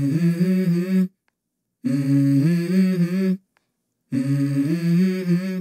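A voice humming a short stepwise melody in three phrases of about a second and a half each, separated by dead silences.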